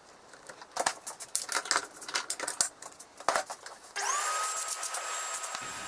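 Knocks and clatter of handling at the workbench, then about four seconds in a shop vacuum starts with a quickly rising whine and runs steadily, sucking MDF chips from the freshly routed hole. Its whine starts to fall away near the end.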